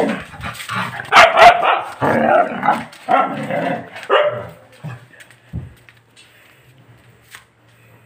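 A dog barking several times in quick succession, loudest about a second in, then falling quiet for the second half.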